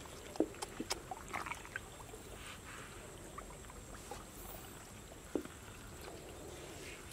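Faint splashes and trickles of shallow pond water as a bare hand and a woven bamboo basket move through it, with a few small sharp splashes scattered through.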